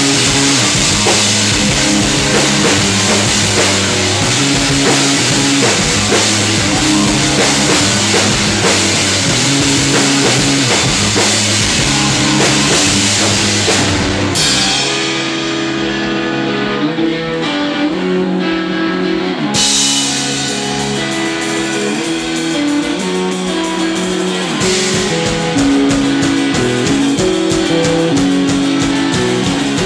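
Live rock band playing, with electric guitar and drum kit. About halfway through, the cymbals and bass drop out and the guitar carries on alone. The drums come back in with a ticking beat a few seconds later and the full band returns near the end.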